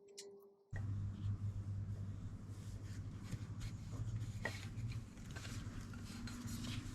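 Hands working on a motorcycle silencer: light scraping and rubbing with scattered small clicks over a steady low hum, starting abruptly about a second in.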